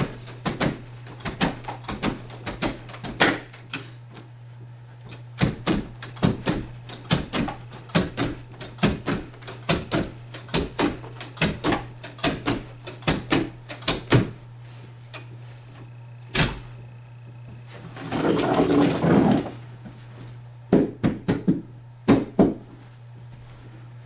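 Carpet being worked onto the tack strip along a wall: an irregular run of sharp knocks and taps, with a longer rushing scrape about eighteen seconds in.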